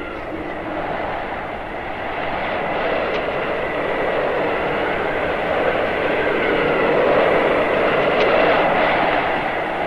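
Howling blizzard wind: a steady roar of gusting wind that grows louder about two-thirds of the way through, with a thin whistle rising and falling above it.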